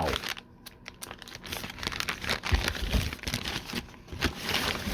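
Packaging on a block of cheese crinkling and rustling as it is handled, a dense run of crackles starting about a second in.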